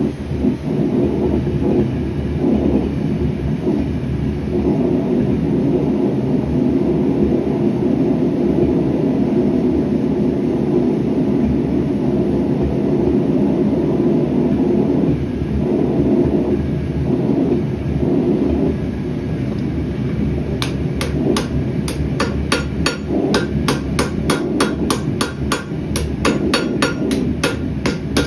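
Steady rushing of a gas forge burner. About twenty seconds in, hammer blows on the hot rebar start, quick and even at about four a second, as the blade is forged.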